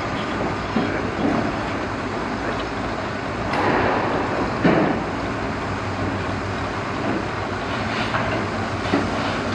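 Heavy diesel earthmoving machinery running steadily, with metallic clanks and knocks a few times; the loudest come about three and a half to five seconds in.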